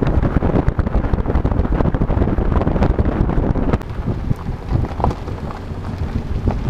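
Wind buffeting a microphone mounted on the outside of a moving car, with tyres rolling over a rough dirt and gravel track: a loud, crackling rush heaviest at the low end.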